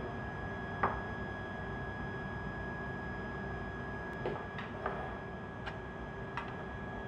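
Steady equipment hum with a faint high tone, and a few light clicks and taps as a glass Erlenmeyer flask and plastic Petri dishes are set down and moved on a lab bench, most of them in the second half.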